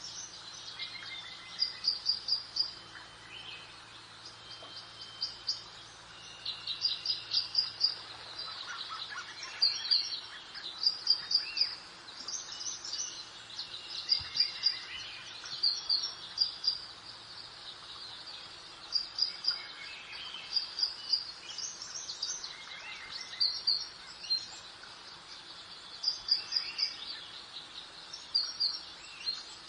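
Several songbirds singing in repeated short, high chirping phrases every second or two, some with lower trills, over a steady soft background hiss.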